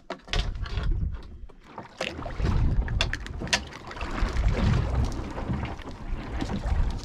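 Wind buffeting the microphone and water lapping at a small wooden boat, an uneven low rumble that swells and fades. A few sharp clicks, about two to three and a half seconds in, come from hands working a hook and line through a dead baitfish.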